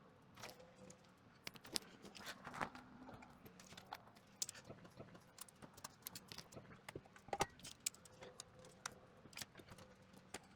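Faint, irregular metallic clinks and clicks, as of bolts, washers and a wrench being handled while a part is bolted in place.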